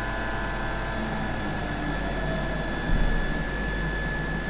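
CNC milling machine running, its spindle giving a steady hum with a high, constant whine. A brief low rumble comes about three seconds in.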